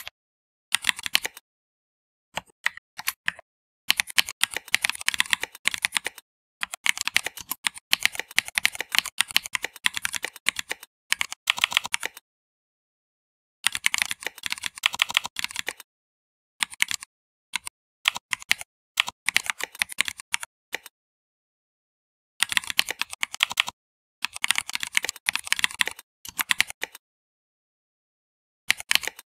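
Typing on a computer keyboard: rapid runs of keystrokes in bursts of a few seconds, broken by short pauses.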